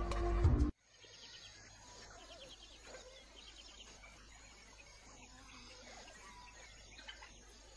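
Music cuts off abruptly under a second in. What follows is faint outdoor natural ambience: soft chirping trills from birds or insects over a low background hiss.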